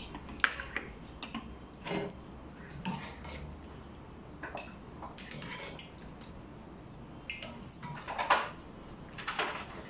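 Glass dishes and cutlery being handled, in scattered light clinks and knocks about once a second, with a louder clatter about eight seconds in.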